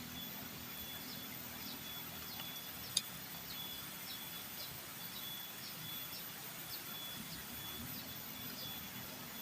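Rainforest ambience: a steady, high, thin insect tone with short high chirps repeating at irregular intervals, and one sharp click about three seconds in.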